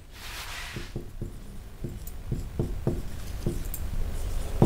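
Marker pen writing on a whiteboard: a series of light taps and short scrapes, about three a second, growing louder.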